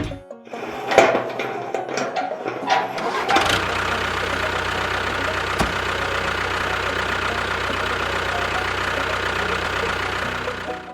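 An engine starting: about three seconds of uneven clattering knocks, then it catches and runs steadily until it cuts off near the end.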